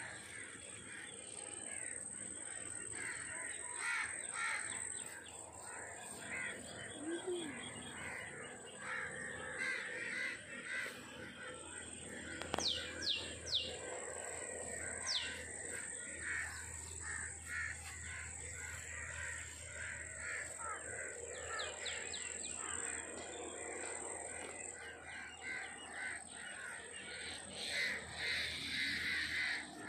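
Crows cawing again and again while other birds chirp, with a few quick falling whistles near the middle, over a steady high-pitched drone.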